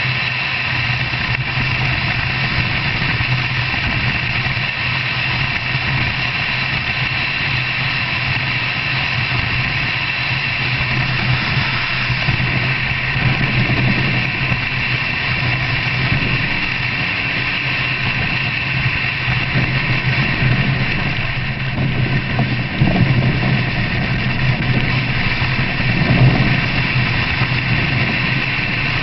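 Vehicle engine running at a steady pitch under way on a dirt track, with a couple of louder rough jolts near the end.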